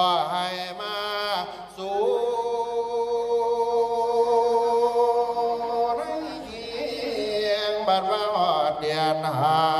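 A man chanting the Isan su khwan soul-calling verse in a long, drawn-out melody, with one long wavering held note through the middle and more moving phrases at the start and near the end.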